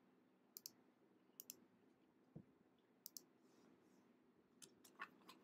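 Faint computer mouse clicks, several in quick pairs and a cluster near the end, over a low, steady room hum.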